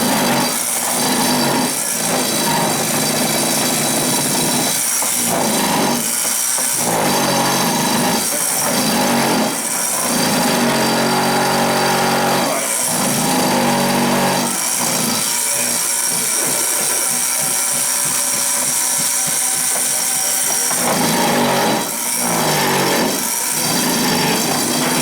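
Electric handheld Bosch vibrator running loud and steady, with a low hum and a harsh high hiss, working refractory lining material in the furnace. It is pressed in and eased off again and again, so the noise dips briefly every few seconds.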